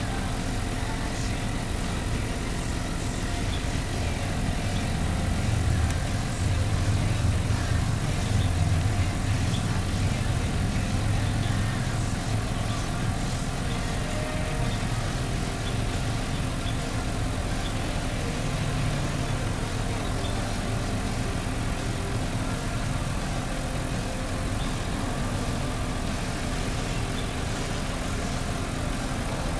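Airford 12-volt portable piston tire air compressor running steadily with a low mechanical hum while it inflates a car tire.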